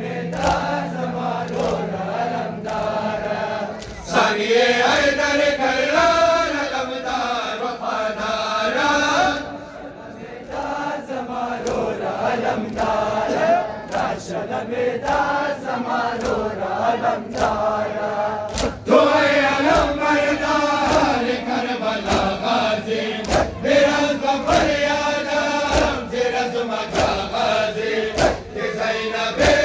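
A large crowd of men chanting a noha in unison, with sharp slaps of hands striking chests (matam) recurring in time with the chant. The chanting swells up about four seconds in.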